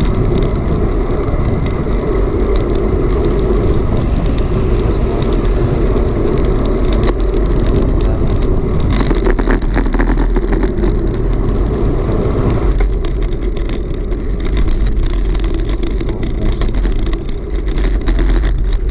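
Wind rushing over the camera microphone and road noise while riding a bicycle at speed, with a burst of rapid clicking or rattling about nine seconds in that lasts a couple of seconds.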